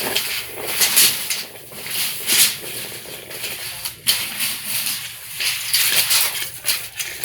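The steel blade of a 40-foot tape measure winding back into its case: a continuous rattling hiss with fine clicks as the long blade slides and clatters in.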